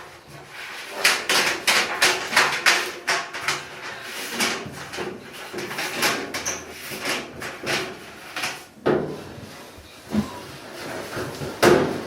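Sheet-metal parts of a GE dryer being handled during repair: an irregular run of knocks, clunks and scrapes, busiest through most of the stretch and quieter after about two-thirds of the way, with another loud knock near the end.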